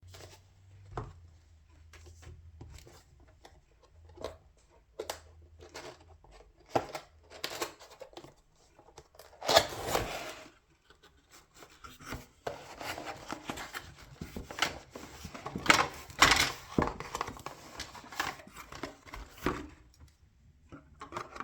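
Hands handling keyboard kit parts and packaging: scattered light clicks and taps, with longer rustling scrapes about ten seconds in and again from about twelve to seventeen seconds.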